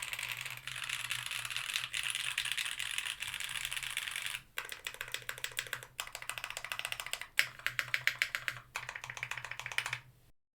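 Typing on a mechanical keyboard with Gateron Milky Top Black linear switches in a tape-modded Tofu60 with an aluminium plate and GMK keycaps. Fast, dense keystrokes for the first few seconds, a brief break, then typing resumes with more distinct clacks until it stops shortly before the end.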